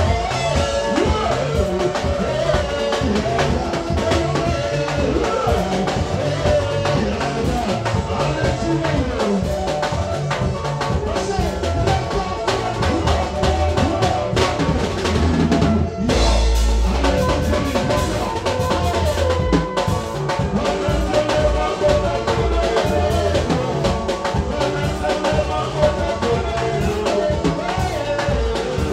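Live band playing, with the drum kit prominent: a steady beat of kick and snare under electric guitars. There is a brief break about halfway through, then a heavy low hit as the band comes back in.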